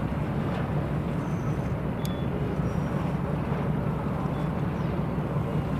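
Police patrol boat's engines running with a steady low drone.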